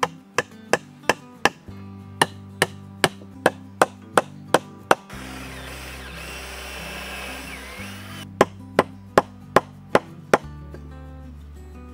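A hammer striking a frame of round log pieces, about two to three blows a second. About five seconds in, a cordless drill runs for about three seconds with a whine that rises and falls, then a quick run of about six more hammer blows follows. Soft background music plays under it all.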